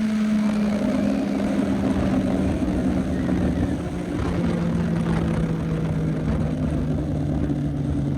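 CFMOTO 675NK's three-cylinder engine running while the motorcycle rides along. It gets louder just at the start, then holds a steady note whose pitch sinks slowly as the revs drop.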